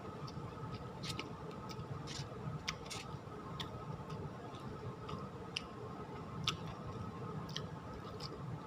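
A person chewing a mouthful of ketoprak close to the microphone, with irregular sharp mouth clicks every fraction of a second. A faint steady hum runs underneath.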